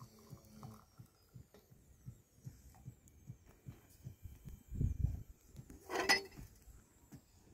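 Tea poured from a metal teapot into a glass, followed by soft low thumps and a dull thud. About six seconds in, a metal tray and tea glasses clatter sharply as the tray is handled.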